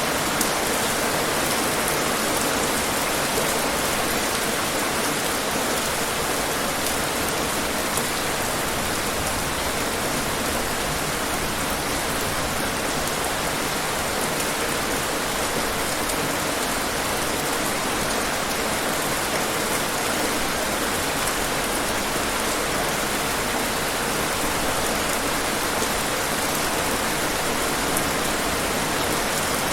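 Steady rain falling, an even hiss of drops that holds constant throughout.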